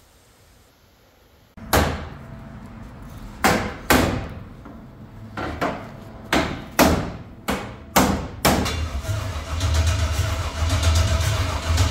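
Truck engine with open headers and no mufflers sputtering to life: a string of sharp, loud pops and bangs, then from about nine seconds in it catches and runs with a loud, rough low rumble.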